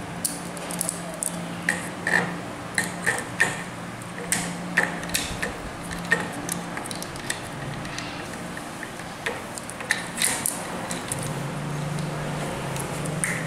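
Steel saw chain clinking and rattling in irregular clicks as it is handled and worked around a pole-saw guide bar and drive sprocket, over a steady low hum.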